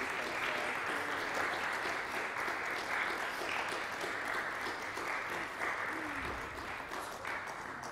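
Audience applauding, a dense patter of many hands clapping that slowly thins toward the end.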